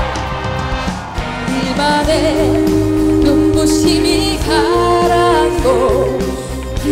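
A woman singing a Korean pop song over full instrumental accompaniment. The voice enters about two seconds in, with vibrato on its held notes.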